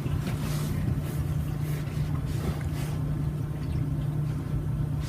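A steady low hum over background noise, with a few faint rustles.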